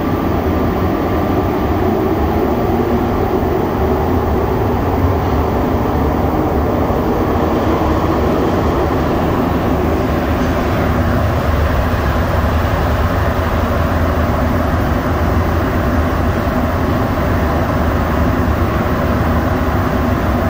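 Rubber-tyred Montreal Metro train running steadily through the tunnel between stations, heard from inside the rear car as a loud, even rumble and hum.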